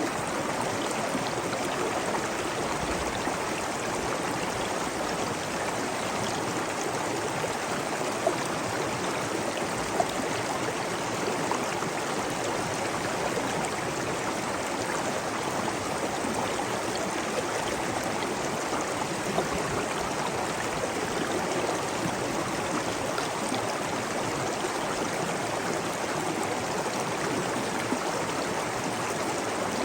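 Flowing water running steadily, a dense, even rush with faint gurgling, like a stream.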